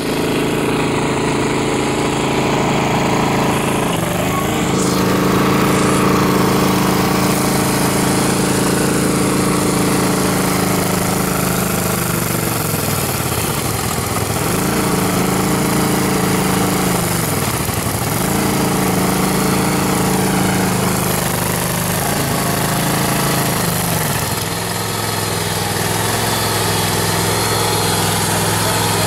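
Engine of a hydraulic tractor running steadily. Several times its pitch sags briefly and then recovers, as the hydraulics are worked under load.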